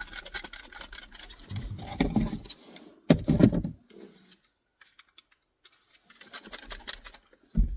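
Handling noise from fitting a car air freshener into the car door: small plastic clicks and rustling, with a couple of dull bumps.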